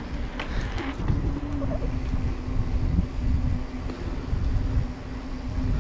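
Mountain bike rolling along an asphalt lane, heard from a camera on the bike: an uneven low rumble of wind on the microphone with a steady low hum running under it from about a second in.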